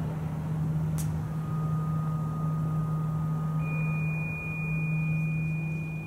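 Electronic drone soundscape of sustained pure tones: a steady low hum, joined a little after a second in by a thin high tone and, past the middle, by a still higher one, with a single sharp click about a second in.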